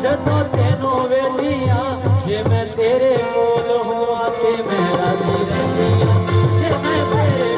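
Instrumental music: a steady drum beat under a wavering melody line.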